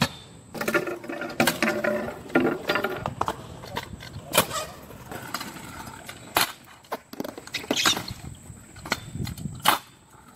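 Stunt scooter riding on a concrete skatepark: the small wheels roll on the concrete, broken by several sharp clacks of the scooter landing and striking the ramp.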